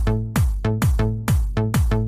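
Electronic dance music with a steady kick drum, a little over two beats a second, under sustained synth notes.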